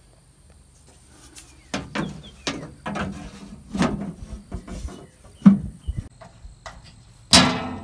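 Sheet-metal cover panel of a generator transfer switch being set back on its cabinet: a run of separate knocks and rattles of thin metal, the loudest a ringing clang near the end.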